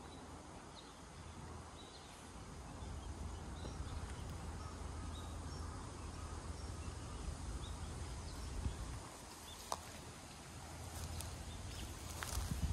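Outdoor ambience: a steady low rumble under a faint hiss, with scattered faint high chirps and a couple of sharp ticks near the end.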